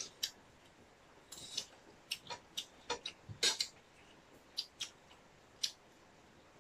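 Eating sounds close to the microphone during a meal of rice and curry: about a dozen short, sharp, irregular clicks and smacks, the loudest about three and a half seconds in.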